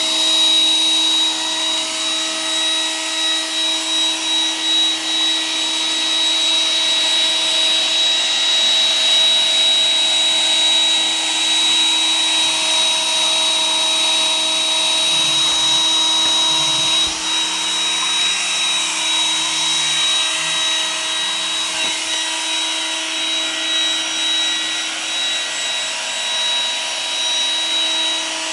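iRobot Roomba 980 robot vacuum running, its motors giving a steady high whine over the even rush of suction and brushes.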